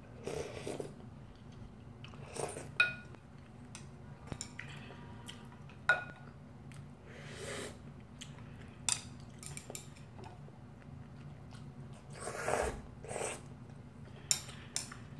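Someone eating instant noodle soup: slurps and sips of broth from a spoon, with chewing, and a few sharp clicks of chopsticks and a metal spoon against a ceramic bowl, the clicks being the loudest sounds.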